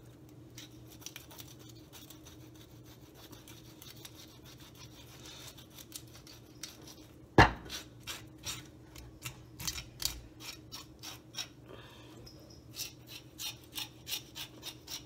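Handheld metal fish scaler scraping the scales off a silver pomfret: faint scraping at first, then a quick run of short strokes, about two a second, in the second half. One sharp knock about seven seconds in, and a low steady hum underneath.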